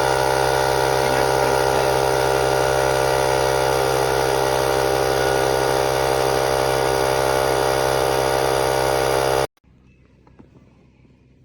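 Built-in air compressor of a VTOMAN X7 jump starter running steadily with a loud, even motor-and-piston hum, then cutting off suddenly about nine and a half seconds in.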